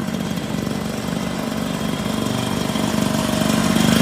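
Small motor scooter engine idling with a fast, steady putter, getting slightly louder near the end.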